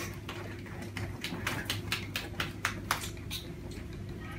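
A few people clapping their hands in a short, scattered round of claps, about four a second, dying out after about three seconds.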